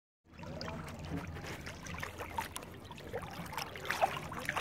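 Lake water splashing and trickling around a pedal boat, with small irregular splashes and knocks.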